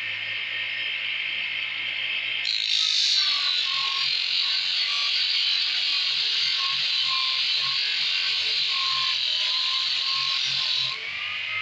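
Homemade disc sander driven by a 180-watt sewing machine motor, running with a steady hum. About two and a half seconds in, a piece of wood is pressed against the spinning sanding disc, and the louder scratchy hiss of sanding goes on until near the end, when the wood comes off.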